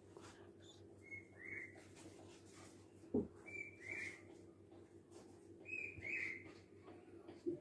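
A bird-like whistled chirp, a short note sliding into a second, heard three times about two seconds apart, over a steady low hum. A single sharp knock, like a metal dish set down, a little over three seconds in is the loudest sound.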